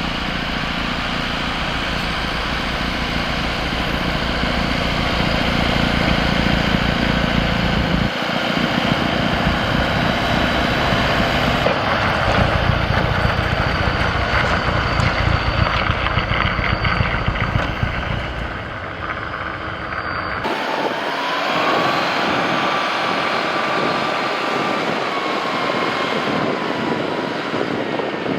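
Kubota tractor diesel engines running under load with PTO-driven snowblowers, a steady heavy rumble and rush. The sound shifts abruptly a few times, and in the last part the low rumble drops away, leaving a higher whine that rises slightly in pitch.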